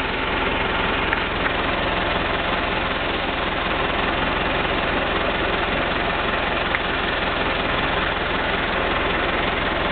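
Farm tractor engine running steadily at a constant speed, with a couple of brief clicks.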